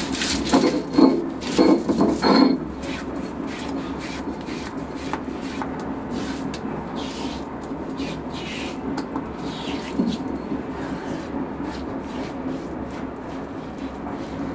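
A stone roller being worked back and forth on a flat grinding stone, crushing a wet coconut-and-spice paste, with about five heavy strokes in the first two and a half seconds. After that comes a quieter, steady rubbing and scraping on the stone as the paste is gathered up by hand.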